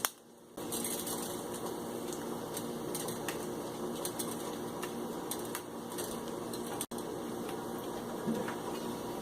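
Curry leaves and dried red chilies sizzling and crackling in hot vegetable oil in a frying pan, a steady spitting hiss that starts about half a second in.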